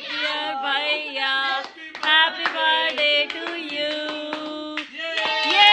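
A song sung in high voices, with long held notes, and hand claps now and then.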